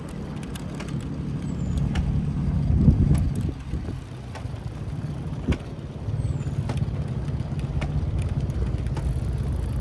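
Low rumble of wind buffeting the microphone during a bicycle ride, with scattered sharp clicks and rattles. The rumble swells to a loud knock about three seconds in, eases off, then holds steady.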